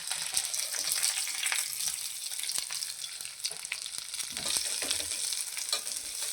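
Chopped dry fruits (nuts, dates, raisins) frying in hot ghee in a pan: a steady sizzle full of small crackles, with a spoon stirring them now and then.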